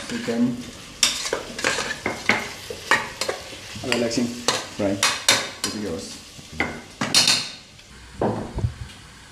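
Metal spoon scraping and clacking against an aluminium pressure-cooker pot as chicken and vegetables are stirred while they fry and sizzle, a stroke roughly every second. A few dull knocks near the end.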